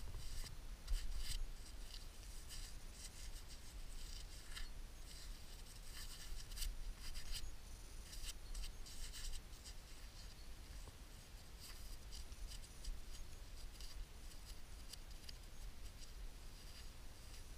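Gloved hands rubbing and scraping sandy soil off a dug-up, corroded, threaded metal relic: an irregular run of dry scratchy rubbing with small clicks.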